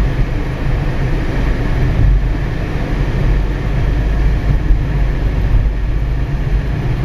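Steady road and engine rumble inside a moving car's cabin, heaviest in the low end and without breaks.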